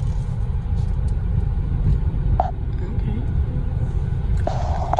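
Car interior noise while driving slowly: a steady low engine and tyre rumble heard from inside the cabin.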